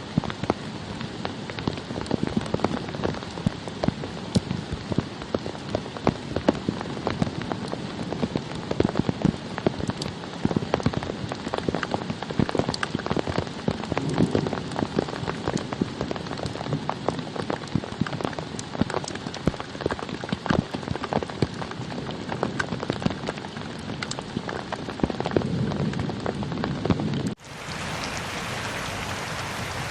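Rain falling, with a dense spatter of many distinct drops striking a surface. About 27 seconds in it cuts abruptly to a smoother, steadier rain hiss.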